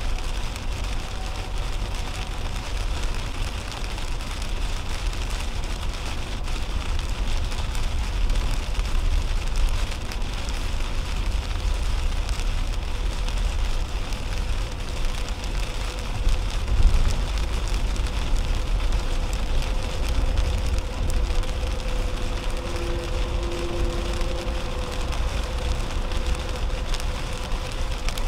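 Steady rain hitting a car's windshield and roof over the low rumble of tyres on a wet highway, heard from inside the cabin of a 2010 Toyota Camry at highway speed. A faint steady hum comes in over the last several seconds.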